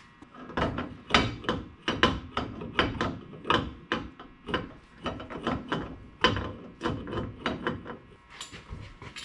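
Irregular metallic clicks and taps, about three a second, of hand tools working the side bearing adjusters of a Mopar 8.25 rear differential, loosening one side and tightening the other to set ring gear backlash.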